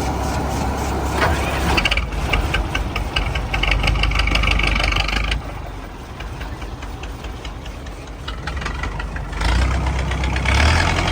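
Tractor engine working hard under load. It revs up about two seconds in, drops back about halfway through, and revs up again near the end, as it strains to tow a heavy stuck rice combine harvester.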